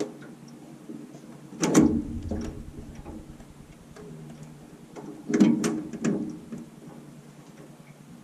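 Clunks and rattles in three bursts: one about two seconds in and two close together around five to six seconds in, each trailing off briefly.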